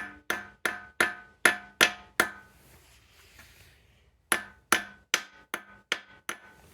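A hammer tapping a pilot bearing into the centre of a flywheel: about three sharp, ringing metal strikes a second, a run of about seven, a pause of about two seconds, then another run of about seven.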